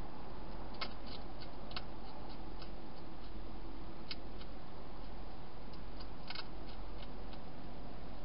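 Wild hedgehog chewing dry food, irregular sharp crunches and clicks, with a small cluster near the end, over a steady background hiss and low hum.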